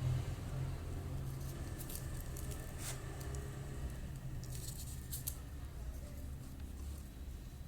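Cardboard being worked by hand: a few short scrapes and clicks, about three seconds in and again around five seconds, over a low steady hum.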